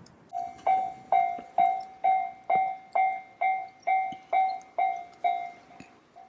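Japanese railway level-crossing warning bell starting up, a pitched 'kan-kan' clang repeating about twice a second, growing fainter near the end. It sounds to warn that a train is approaching and the crossing is closing.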